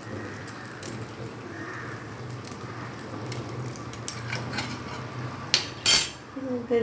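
Chicken gravy simmering in a stainless-steel kadai on a gas burner, a low steady hum with light scattered clicks. Near the end, two sharp clinks of steel utensils as a steel plate is handled over the pan.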